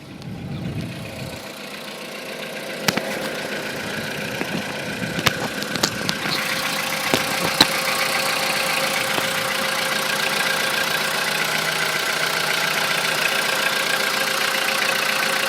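Volkswagen Polo sedan's 1.6-litre CFNA four-cylinder petrol engine idling just after a cold start, growing louder over the first several seconds, with a few sharp clicks. The metallic cold-start knock, which the owner took for piston knock, is essentially absent; only an occasional faint sound passes.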